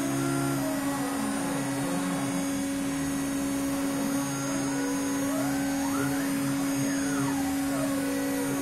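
CNC router running a program in the air: the spindle runs with a steady hum while the axis motors whine in glides that rise and fall in pitch as the gantry moves. The highest rise and fall come about six to eight seconds in.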